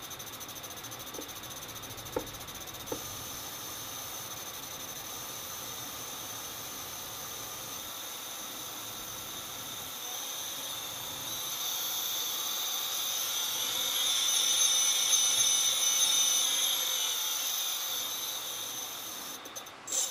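T-Motor brushless outrunner motor driven by an ESC, running with a high-pitched whine of several steady tones. It grows louder from about halfway with a wavering pitch, peaks, eases off and cuts off at the end. The owner finds the sound weird and is unsure whether the motor or the ESC is at fault.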